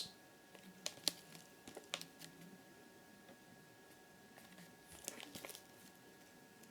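Faint handling of firework packaging: a few light crinkles and taps as the cakes are picked up and set down.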